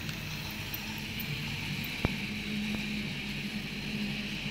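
A toy steam train running on plastic track: the steady whir and hum of its small electric motor and gears, with one sharp click about two seconds in.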